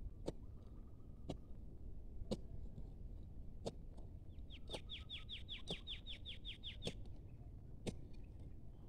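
Footsteps crunching on dry ground litter about once a second. Midway a bird gives a rapid series of about a dozen short, high, falling chirps lasting a little over two seconds.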